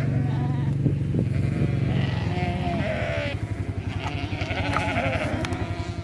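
Sheep bleating several times, each call wavering in pitch, over a low steady rumble.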